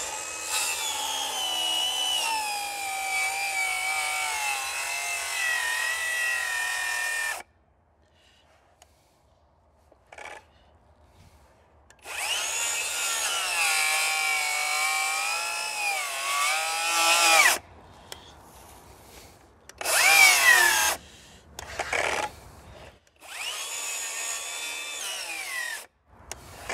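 Hercules brushless cordless circular saw cutting across a dry maple log at full blade depth. The motor whine sags in pitch under load and recovers, and the saw stops and restarts several times with gaps between the runs: it is struggling to get through the hardwood.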